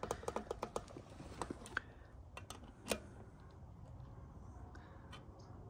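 Light clicking from a torque wrench worked on a spoke nipple: a quick run of clicks over the first two seconds, then a few scattered clicks. Here the nipple is being turned the wrong way, loosening the spoke.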